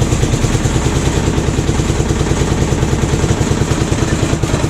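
Old carbureted single-cylinder engine idling cold with an even, rapid beat, warming up after a choked start; it needs several minutes of warm-up before it will stay running on its own.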